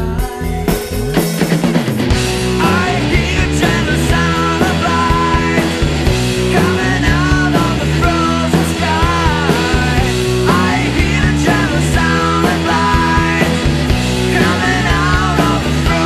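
Alternative rock song played by a band on electric guitars and drums, the full band coming in about two seconds in, with a wavering melodic line over the top.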